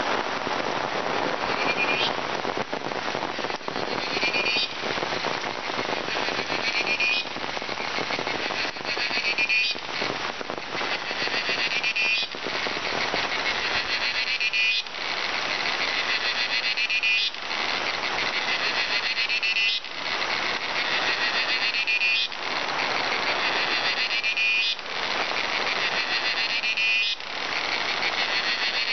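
A loud, buzzing, finely pulsed animal call repeats about every two and a half seconds, each call rising and ending abruptly. Under it runs a steady hiss of rain on the forest foliage.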